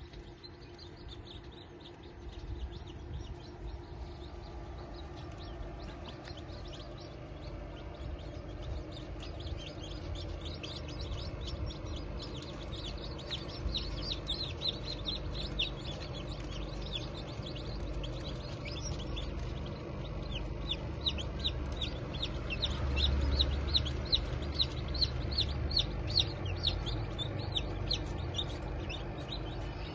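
Chicks peeping rapidly and continuously, the calls growing busier from about ten seconds in, over a steady low hum of the automatic egg incubator.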